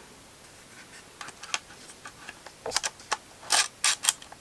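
Small plastic clicks and taps as a battery is fitted into a Panasonic Lumix G7 camera body: light scattered ticks, then a quick run of louder clicks in the second half.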